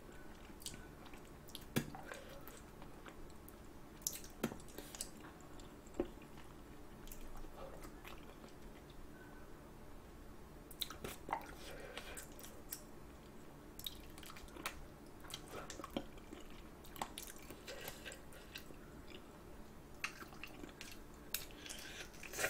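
Close-miked chewing of braised chicken feet: wet, sticky mouth sounds broken by scattered sharp little clicks and crunches as skin and cartilage are bitten off the bones.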